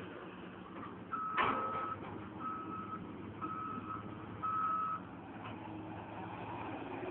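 Caterpillar 315 excavator's travel alarm beeping four times, about once a second, over the steady running of its diesel engine, with one sharp knock near the first beep.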